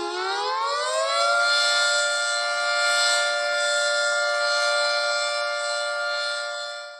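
A siren winds down to its low point, climbs in pitch over about a second, then holds a high steady wail. It drops away briefly near the end.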